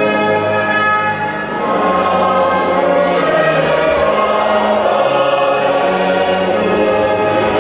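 A choir singing with orchestral accompaniment, a steady, full-voiced choral piece.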